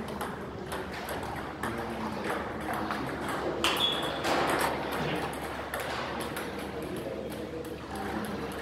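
Table tennis rally: the plastic ball clicking off the players' rubber-faced paddles and bouncing on a STIGA table, a sharp click well under a second apart.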